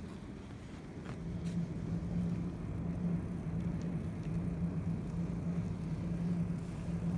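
Brass HO-scale model of a Southern Pacific MC-4 cab-forward locomotive running on track: a steady motor and gear hum over wheels rolling on the rails, growing louder about a second in, with a few faint clicks.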